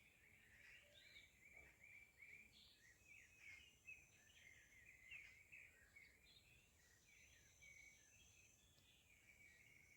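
Faint chorus of small songbirds: many short chirps and twitters overlapping continuously, with a thin steady high tone above them.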